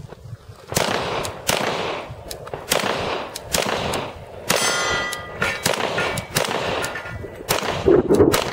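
A string of pistol shots from a Glock 35 in .40 S&W, fired one after another at an uneven pace, with a short metallic ringing about halfway through.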